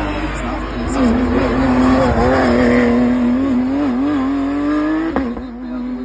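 Race car engine revving hard through a hairpin and accelerating away, its pitch wavering and climbing, with some tyre squeal. A sharp crack comes about five seconds in.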